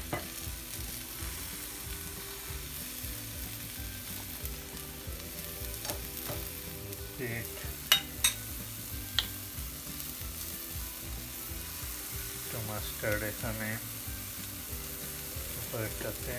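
Chicken burger patties sizzling on a stovetop griddle, a steady hiss. A few sharp clicks come about eight seconds in, and some light clatter follows near the end.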